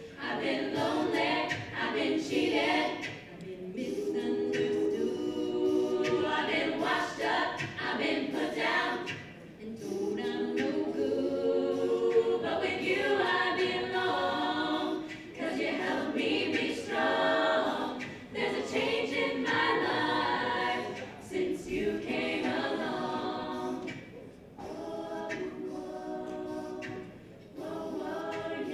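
All-female a cappella group singing: a solo lead voice over the group's sung backing harmonies, in phrases with short breaks, somewhat softer over the last few seconds.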